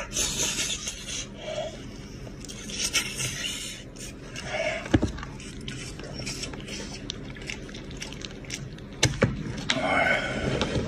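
Close-up eating sounds: wet chewing, sucking and smacking as meat is eaten off a cooked goat's head by hand, with a few sharp clicks as the bones are pulled apart.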